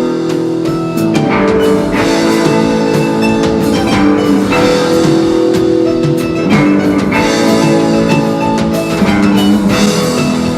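Rock band playing the song's instrumental introduction: a drum kit keeping a steady beat under sustained guitar chords.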